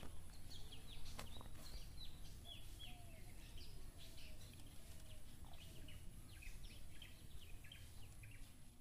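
Small birds chirping, many short, quickly falling calls in a steady stream, over a low outdoor rumble.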